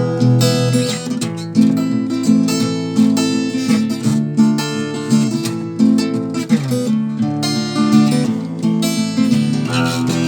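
Solo acoustic guitar playing an instrumental passage between verses of a folk song, with picked and strummed chords.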